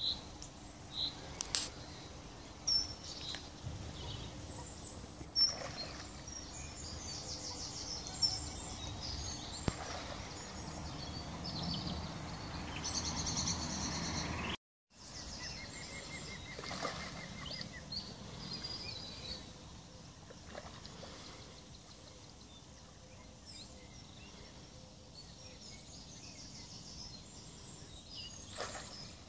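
Carp splashing at the surface of the canal: a few short, sharp splashes in the first ten seconds and another near the end, over birds singing.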